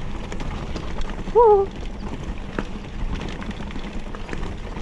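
Mountain bike rolling down a rocky dirt trail: a steady rumble of tyres on loose stones and wind on the mic, with scattered rattling clicks from the bike. A brief shout from a rider about a second and a half in.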